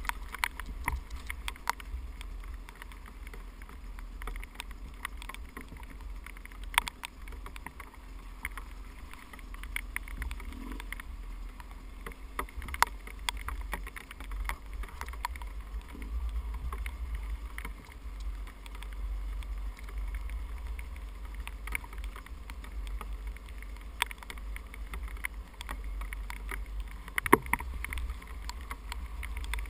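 Dirt bike ridden over a wet, rocky trail: a steady muffled low rumble with frequent short knocks and rattles as the bike bounces over rocks, the sharpest near the end.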